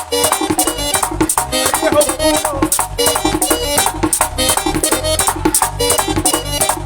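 Merengue típico band playing an instrumental passage: accordion melody over a driving, even beat of tambora drum and güira scraper.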